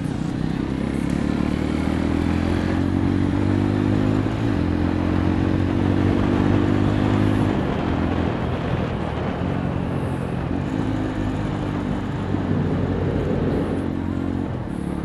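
Yezdi Roadster's single-cylinder engine running through an exhaust with its dB killers removed, the bike under way. The note climbs gently over the first few seconds, then drops in steps about four and seven seconds in.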